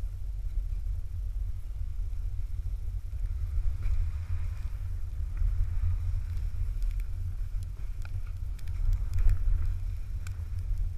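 Snowboard sliding and scraping over snow with a steady low rumble from wind and vibration on the pole-mounted camera's microphone. The scraping hiss swells twice, a few seconds in and again near the end, with a few light clicks.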